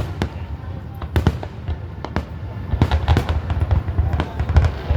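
Fireworks going off: a string of sharp bangs and pops that thickens into rapid crackling from about halfway through.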